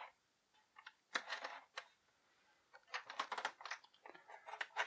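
Hobby knife blade cutting and scraping through packing tape on a cardboard box backing, in three short runs of scratchy clicks: about a second in, around three seconds, and near the end.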